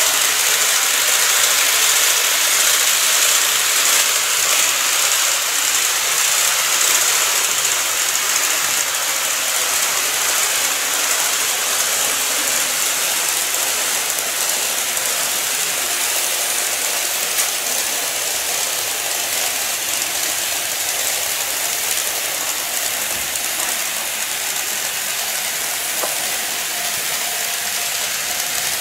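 KATO N-gauge model electric trains running on the track: a steady high whirring from the motor and running gear with rail noise from the wheels. A faint steady hum joins in near the end as a second model train runs past on the next track.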